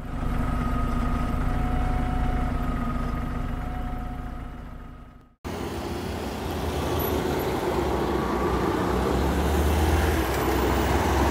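A steady drone with a few held tones fades out over about five seconds. It is followed by road traffic climbing a hill road: vehicle engines and tyre noise, with a low engine rumble that grows louder from about seven seconds in as a car and a city midi bus come up toward the roadside.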